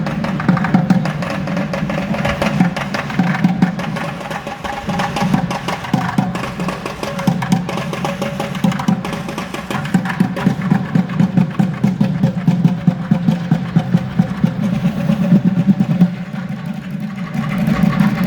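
Music with fast, dense drumming, the strikes coming many times a second over a steady low tone, easing briefly near the end.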